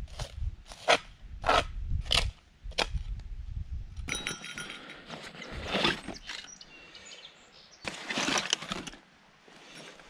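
A small metal trowel scraping and scooping ash and grit in a stone fire ring, five strokes a little over half a second apart. Then rustling and faint clinks as a backpack and hatchet are handled.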